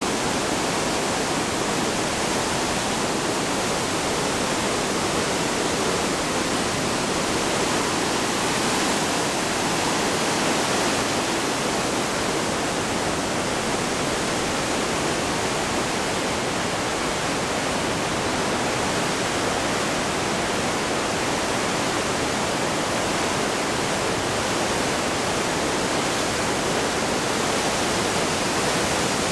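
Steady rush of a fast turquoise river churning into whitewater through a narrow rocky gorge, an even unbroken noise.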